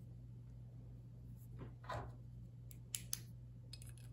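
Handling noise from a Daniel Defense 11.5-inch rifle barrel being picked up and turned in the hands: a brief rub about two seconds in, then two light clicks close together and a few fainter ticks, over a faint steady room hum.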